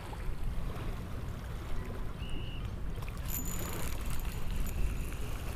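Wind buffeting the microphone over choppy open water, a steady low rumble with water sloshing underneath.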